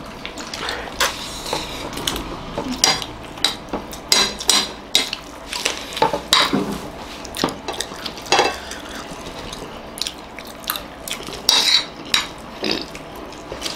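Metal spoon and fork clinking and scraping against a plate as rice is scooped up, in short irregular clicks.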